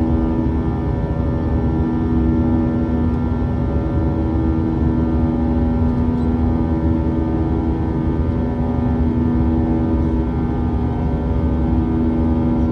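Airbus A320's jet engines running with a steady drone: a low rumble under a few steady hum tones, unchanging in level.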